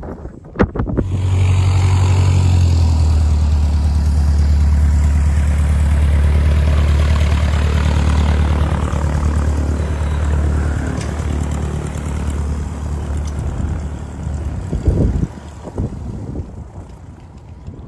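Single-engine high-wing light aircraft taxiing past, its piston engine and propeller running with a steady low hum. The sound comes up loud about a second in and fades over the last few seconds as the plane moves away.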